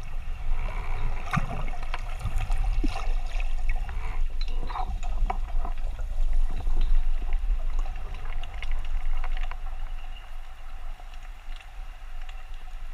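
Underwater sound through a camera housing: a steady low rumble of water moving past, with many scattered clicks and crackles, easing off a little near the end.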